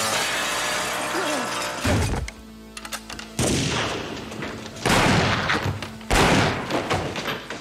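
Four loud gunshots about a second and a half apart, each cutting in suddenly and dying away in a long echoing tail, over film score music with a steady low drone.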